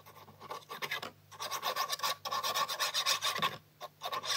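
Textured cardstock being handled, paper rubbing and sliding against paper in many quick strokes with a few short pauses.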